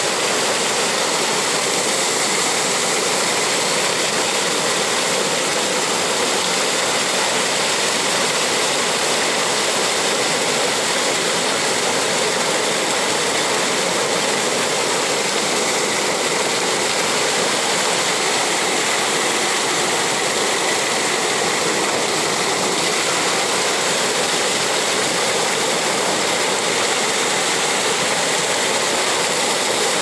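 Waterfall water rushing and churning, a steady, unbroken noise.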